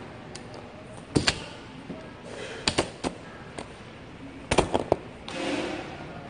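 A string of sharp knocks and clicks from a handheld phone being handled and bumped, a few in quick pairs, the loudest pair just over a second in and another pair over a second before the end.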